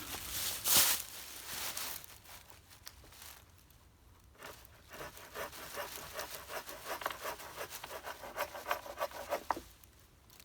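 Folding saw with a Bahco blade cutting through a branch: a run of quick, even back-and-forth strokes that stops abruptly shortly before the end, after a brief loud rustle near the start.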